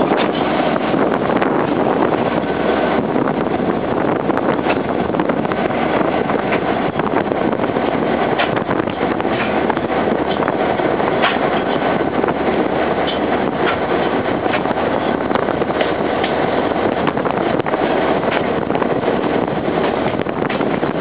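Steady rushing rumble of a moving vehicle, with wind on the microphone and a few faint clicks.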